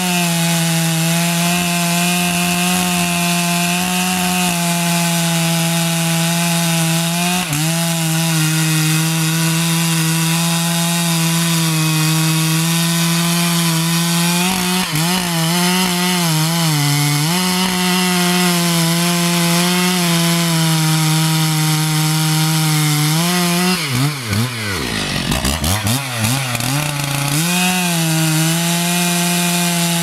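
Petrol Stihl chainsaw cutting through a log at full throttle, its engine note holding steady under load. The pitch sags briefly a few times, and about three quarters of the way through it falls away sharply and then revs back up.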